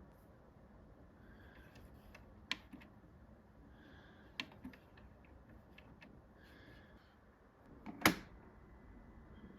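A few sparse, light clicks and taps, with one much louder knock about eight seconds in.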